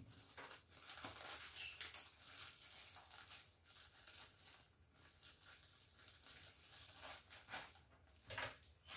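Faint eating sounds at a bowl of curry laksa noodles: soft, irregular clicks and taps of utensils against the bowl, with small rustles and chewing.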